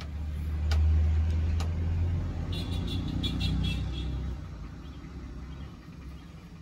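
A low rumble that swells during the first second, holds, and fades away after about four seconds, with two light clicks early on.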